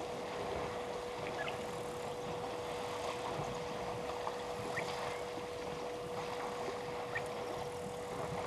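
Water sloshing and splashing as African elephants bathe and roll in a shallow waterhole and spray water over themselves with their trunks, over a constant steady hum. Faint short chirps come every few seconds.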